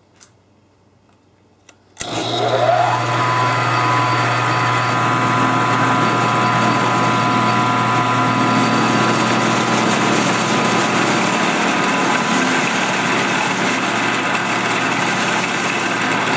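Milling machine switched on about two seconds in, its spindle spinning up and then running steadily while a 3/4-inch round end mill plunges into a metal mold block, the motor's steady hum mixed with the noise of cutting.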